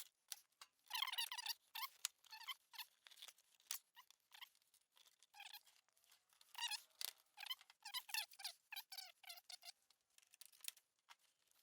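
Faint, irregular clicking and squeaking as bolts are undone and the truck's plastic front grille is worked loose, with small rattles and plastic creaks in uneven clusters.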